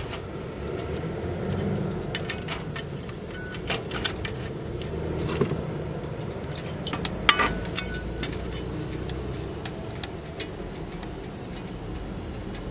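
A dozen or so light clicks and clinks scattered through the middle seconds, a few with a brief metallic ring, over a steady low background rumble.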